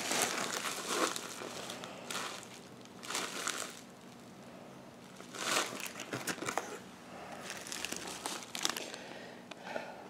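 Plastic mailer envelope and plastic packaging crinkling in irregular bursts as they are handled and opened, with short quieter gaps between the rustles.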